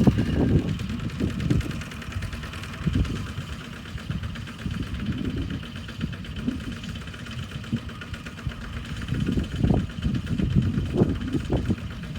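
Single-cylinder Kubota RT140 diesel engines of walking tractors running with an uneven low chugging, louder at first, easing off, then building again over the last few seconds.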